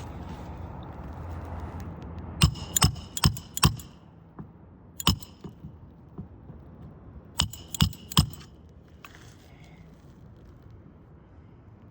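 Hammer driving roofing nails into a replacement asphalt shingle, sharp metallic strikes with a ringing tone. The strikes come in three groups: about four quick blows a couple of seconds in, a single blow in the middle, and three blows near the end.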